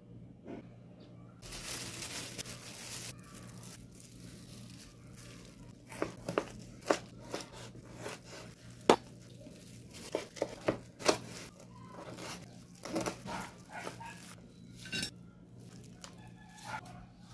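Chef's knife cutting fried pork into strips on a wooden cutting board: sharp, irregular chops and knocks, most of them between about six and fifteen seconds in. A brief crinkly rustle comes about two seconds in.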